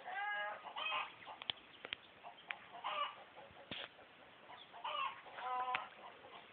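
About five short, pitched animal calls spread across a few seconds, with a few sharp clicks in between.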